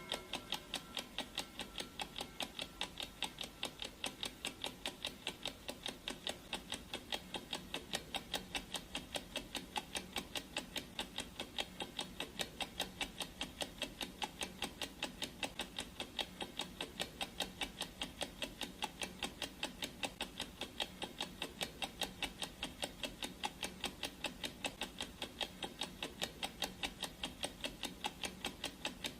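Clock ticking sound effect: even, rapid ticks, a couple to a second, repeating without a break.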